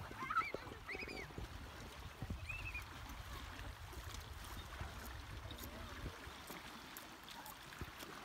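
Wind rumbling on the microphone with faint water lapping against the rocks, and a few short high calls in the first three seconds.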